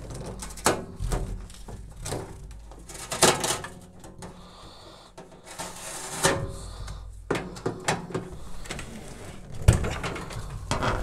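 Handling noises of a microwave oven being reached over and groped behind for its power cable: scattered knocks, clicks and rustling, with one sharp knock near the end.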